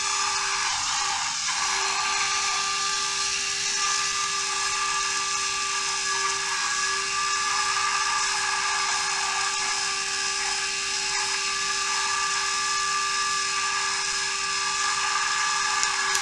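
A servo's small DC motor, wired straight to a 12 V supply, running steadily as it turns a 3D-printed plastic worm gear against a spur gear. The output turns slowly through the 10:1 reduction. It makes a constant whine with a whirring gear hum over it.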